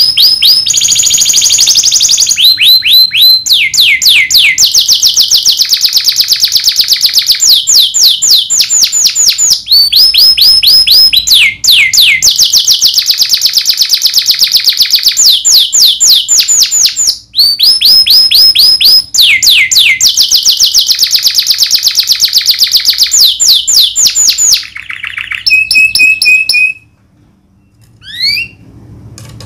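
Domestic canary singing loud, sustained rolls: fast trills of repeated downward-sliding notes that change to a new trill every few seconds. The song breaks off about five seconds before the end, leaving a brief held note and a few short single notes.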